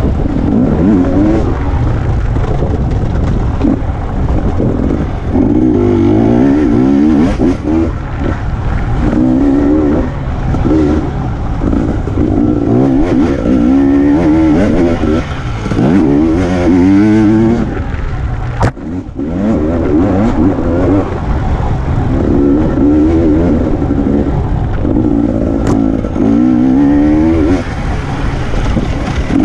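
Enduro dirt bike engine, heard from on board, revving up and dropping back over and over as the rider works the throttle along the trail. A sharp knock comes about two-thirds of the way in, with a brief dip in the engine sound.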